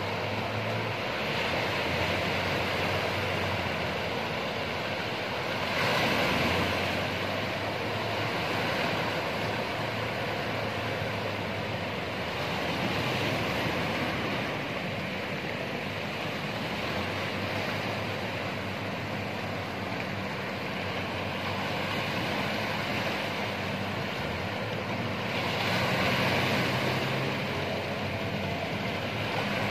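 Ocean surf breaking and washing in, swelling louder about six seconds in and again near the end. Underneath, a fishing boat's outboard motor runs with a low, steady hum.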